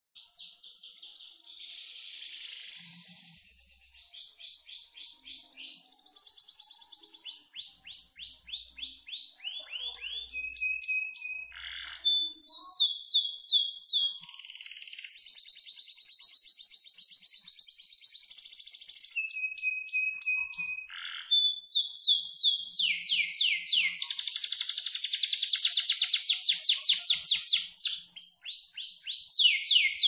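Domestic canary singing a long, continuous song of rapidly repeated phrases: fast trills and rolls alternating with runs of downward-sweeping notes, with a couple of short held whistles. The song gets louder in the second half.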